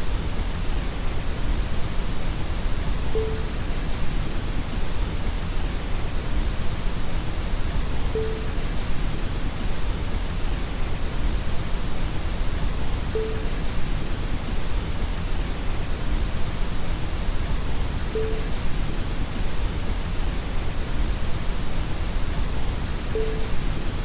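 Warm static: a steady, even hiss like TV snow, heavier in the low end than the top, with a short mid-pitched beep every five seconds, a watermark inserted into the demo.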